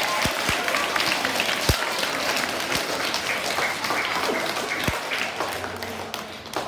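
An audience of young schoolchildren applauding, the clapping thinning out and fading near the end.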